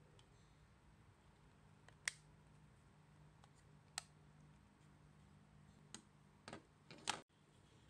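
Hard plastic pieces of a capsule-toy maneki-neko figure snapping into place as it is put together: two sharp clicks about two seconds apart, then a few lighter taps and knocks as the figure is handled near the end.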